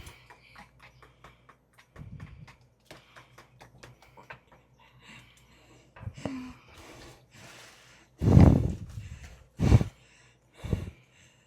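Scattered light clicks and knocks, then a person coughing in three harsh bursts, the first the longest, in the manner of coughing after a hit of nicotine.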